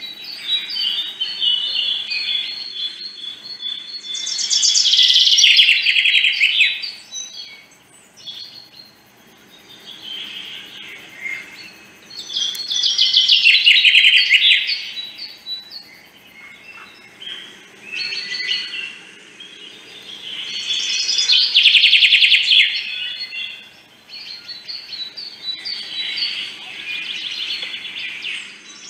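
Small songbirds chirping and twittering continuously, swelling louder about every eight seconds in a repeating pattern.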